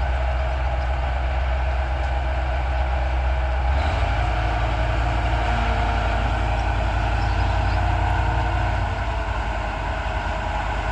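Heavy diesel engine of a crane running steadily, its low note shifting abruptly about four seconds in.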